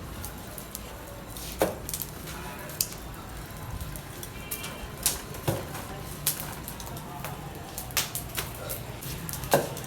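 Irregular knocks and clatter from cooking work, such as utensils against pots or chopping, spaced a second or so apart, over a steady low hum.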